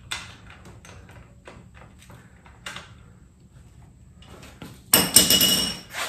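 Light clicks and taps of hands and small parts working at the front fork ends of an upside-down e-bike, then about a second of loud clattering rattle with a metallic ring near the end.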